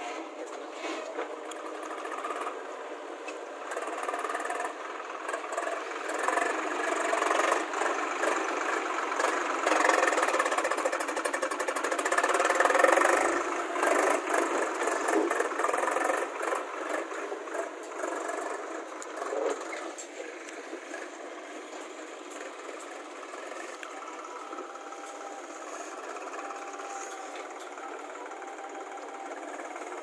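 Diesel engines of a JCB backhoe loader and a Swaraj 735 tractor running together with a busy clatter, louder from about six seconds in through the middle, then easing to a steadier, quieter run.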